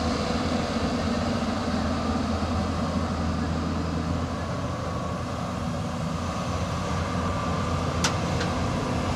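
Hyundai Robex crawler excavator's diesel engine running steadily, with a sharp click about eight seconds in.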